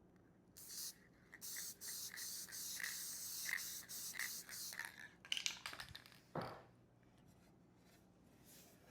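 Lacquer being sprayed onto bare wood: a short hiss about half a second in, then a steady spray hiss for nearly four seconds. A few clicks and a knock follow, after which it is quiet.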